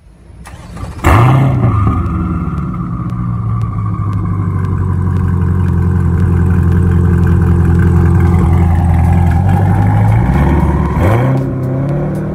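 A car engine catches with a sudden loud flare about a second in, then settles and runs steadily at a raised idle, dipping and picking up again near the end.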